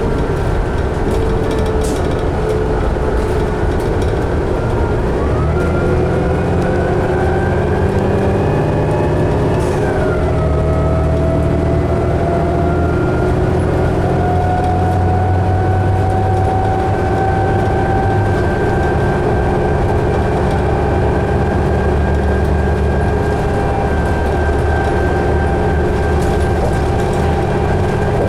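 A 2011 New Flyer D60LFR articulated diesel bus heard from inside, its engine and drivetrain running under a steady low rumble. Drivetrain whines rise in pitch as the bus gathers speed. One whine drops sharply about ten seconds in, as at an upshift, and then the whines hold level at cruising speed.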